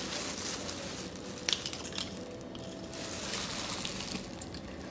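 Thin plastic shopping bag crinkling and rustling as things are pulled out of it, with a couple of light clicks about a second and a half and two seconds in.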